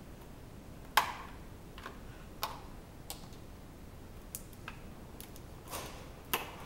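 Plastic toy packaging being opened by hand: irregular sharp clicks and short crinkles, the loudest about a second in and another near the end.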